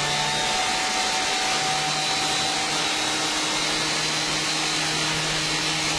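Electric motor of a Bell P-63 Kingcobra's landing gear running steadily under power to drive the nose gear, a constant whine over a rushing hiss.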